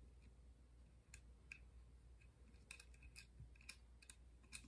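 Faint small metallic clicks and ticks as a T-nut is turned by hand onto a button-head socket bolt at the corner of an aluminium extrusion frame, more frequent in the second half.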